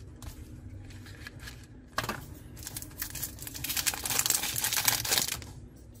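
Handling of a cardboard Zippo gift box and its insert: a sharp tap about two seconds in, then a few seconds of rustling and crinkling as the lighter is taken out.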